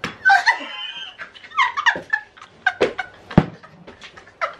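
Women laughing and squealing in short high-pitched fragments, with a few sharp clicks and one dull knock about three and a half seconds in.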